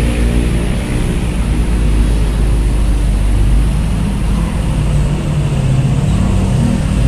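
Road traffic running over a level crossing: a mix of car and motorbike engines with a steady low rumble. In the second half a heavy diesel truck hauling a shipping container pulls across, and its engine note comes up over the rest.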